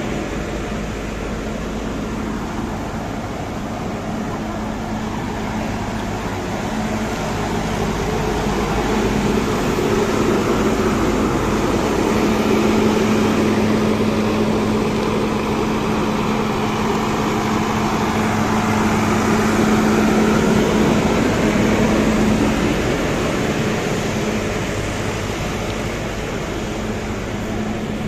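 Nilgiri Mountain Railway toy train, a steady mechanical hum with a low tone, growing louder through the middle and easing off near the end.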